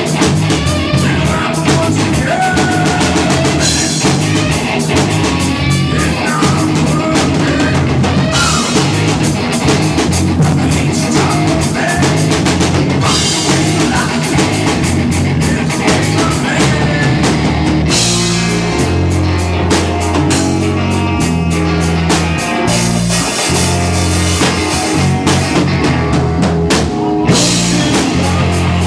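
Rock band playing, with a steady drum-kit beat and a bass line that changes to longer held notes about two-thirds of the way through.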